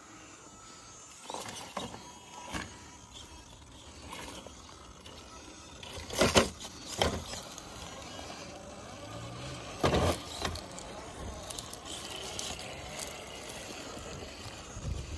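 Traxxas TRX-4 Defender RC rock crawler climbing over boulders: its small electric motor and gears whir in spurts, with knocks and scrapes as the tyres and chassis hit the rock, the loudest knocks about six and ten seconds in.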